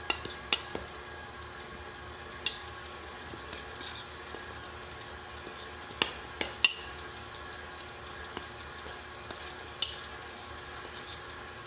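Electric mixer running steadily, a constant whirring hiss with a faint motor hum, while a big spoon stirs ingredients in a bowl by hand, with several sharp clinks of the spoon against the bowl.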